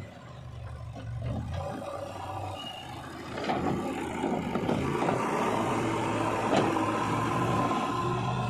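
JCB 3DX backhoe loader's diesel engine running steadily. From about three seconds in, its front loader bucket is driven into a pile of earth, and the engine note comes with a louder scraping, crunching noise of the bucket digging in.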